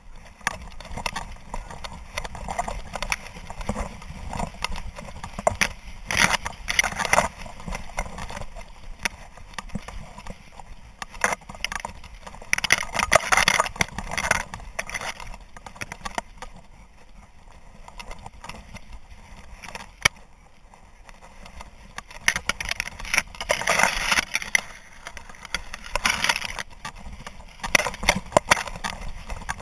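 Dry grass swishing and scraping against a collar-mounted camera as a hunting dog runs through a field, with its footfalls beneath. The rustling swells in louder spells about six, thirteen and twenty-four seconds in.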